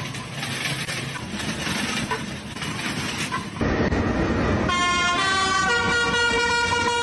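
A steady rolling, rattling noise gives way suddenly to traffic noise. From about five seconds in, a fire engine's horn blares in several steady, shifting tones.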